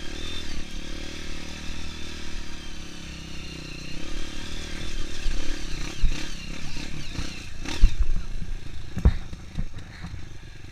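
Honda CRF 230 dirt bike's single-cylinder four-stroke engine running as it rides a rough trail, with several sharp knocks and clatters in the second half.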